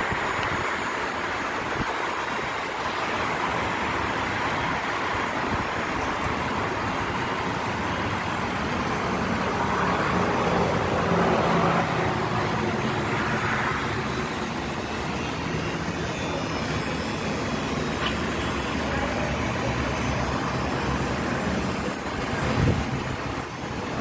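Steady traffic noise of buses and other vehicles, with a faint low engine hum and a short louder bump near the end.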